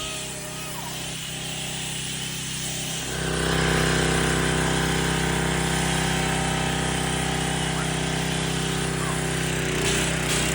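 Pressure washer running steadily; about three seconds in it gets louder and a spray hiss joins it as the water is blasted onto the surface being cleaned.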